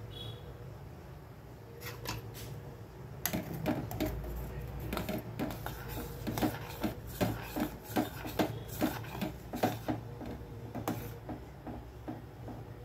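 Light knocking and clicking of kitchen utensils, a quick irregular run of about two or three knocks a second that starts a few seconds in and thins out near the end, over a low steady hum.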